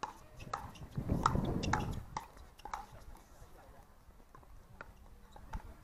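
Pickleball paddles striking the hard plastic ball during a rally: a run of sharp pops at uneven intervals, about six in the first three seconds and a few more spaced out after. A low rumble swells between about one and two seconds in.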